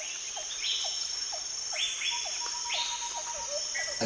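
Chirping of crickets: a steady high trill with short chirps repeating about twice a second, with bird-like calls over it.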